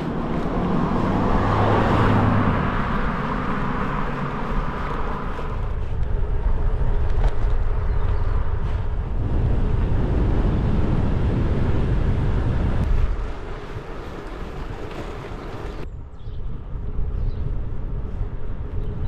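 Wind rushing over the microphone, mixed with the tyre noise of a loaded gravel bike rolling along a tarmac lane. The rushing is strongest in the first few seconds and eases off about two-thirds of the way through.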